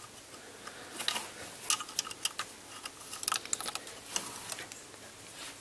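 Light metallic clicks and taps of the old contact-breaker points and condenser being lifted out of an MGC's distributor, scattered irregularly over a few seconds.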